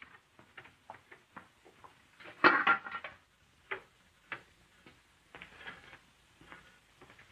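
Kitchen pots and lids clinking and knocking on a stove, with a louder metallic clatter about two and a half seconds in.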